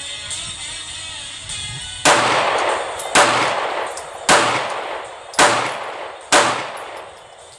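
Five gunshots about a second apart, each trailing off in a long echo. Background music plays before them.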